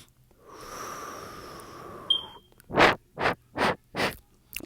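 Breath noises made right against the microphone: a long rushing breath, a sharp click, then four short loud puffs in a quick, even rhythm.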